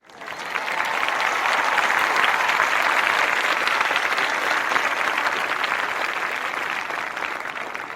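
Audience applauding: dense, steady clapping of many hands that swells in over the first second and thins slightly toward the end.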